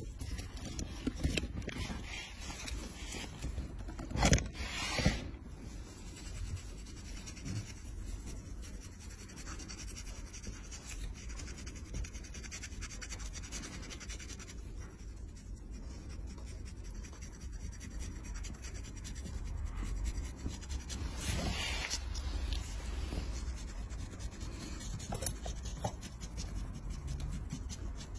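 A metal callus scraper and a steel foot file scraping dry, flaking callus off a heel: a rough, repeated scratching, with a few louder strokes standing out.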